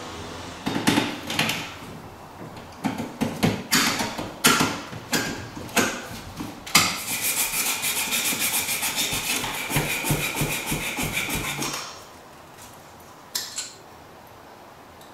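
Hand work on CPVC water pipe and fittings: a string of clicks and knocks, then about five seconds of fast, even rasping that stops abruptly, and one short click near the end.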